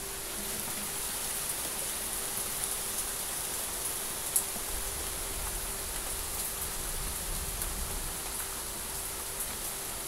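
Steady rain: a dense, even hiss with scattered small drop ticks, and one sharper drop tick a little over four seconds in.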